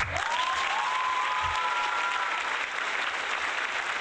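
A crowd applauding and cheering, with a couple of drawn-out cheering voices rising slightly over the clapping in the first two seconds or so.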